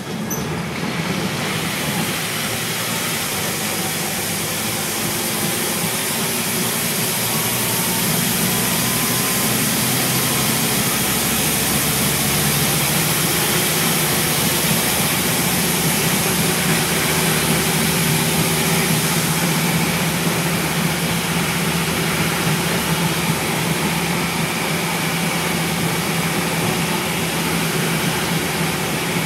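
Scania N230UB single-decker bus under way, its five-cylinder diesel engine running with a steady low drone under a constant hiss of road and tyre noise, heard from inside the saloon. It grows a little louder over the first couple of seconds, then holds steady.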